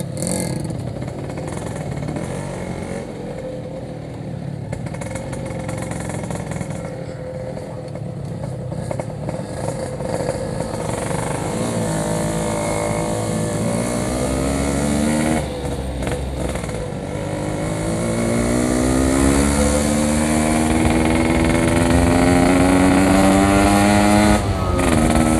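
Yamaha RX-King 135cc two-stroke single-cylinder engine under way: running at low revs, then from about halfway revving up through a gear, dipping briefly at a gear change, and climbing in pitch again in the next gear until just before the end.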